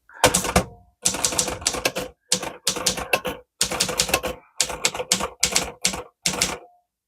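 1932 Klein Continental portable typewriter being typed on: runs of quick keystrokes in short groups with brief pauses between them.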